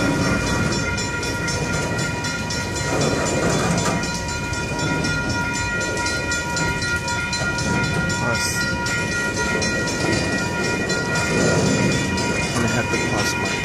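Freight train of loaded flatcars rolling past close by, with a steady rumble of wheels on rail. Several steady high-pitched tones carry on above it the whole time.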